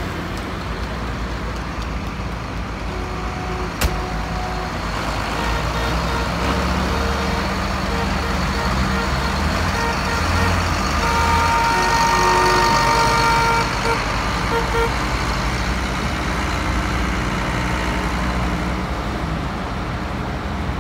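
John Deere farm tractors' engines running steadily as a line of them drives past, with horns sounding: a string of short toots from about six seconds in, and a louder, longer multi-note horn blast about halfway through.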